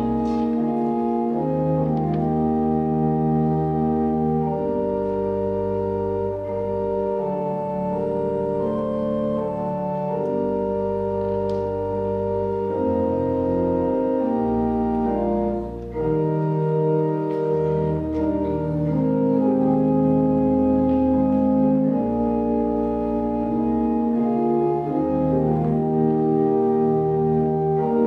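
Church organ playing offertory music: slow, sustained chords over held bass notes, the chords changing every second or two.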